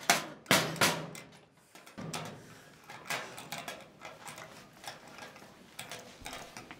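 Combination padlock on a metal school locker being worked: a few sharp metallic clacks in the first second, then a run of lighter clicks and rattles.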